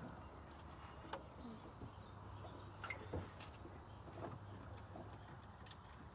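Faint, scattered light clicks and taps from hands handling small parts and tools, over a low steady hum.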